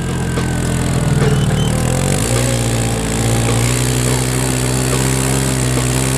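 Engine of the vehicle towing sleds over snow, running steadily. For about the first two seconds its note sits lower, then it picks up and holds a higher, even note.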